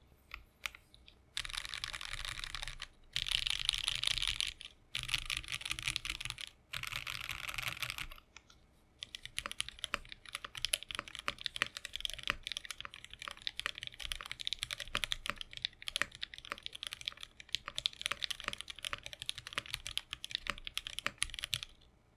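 Iron 165 R2 custom mechanical keyboard with lubed and filmed H1 linear switches, an FR4 plate and GMK keycaps being typed on. It opens with four stretches of very rapid, dense key clicking in the first eight seconds, followed by steady ordinary typing with several keystrokes a second.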